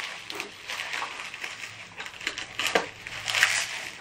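Hands unwrapping a candle from its packaging: irregular rustling and crinkling, with a few sharper crackles.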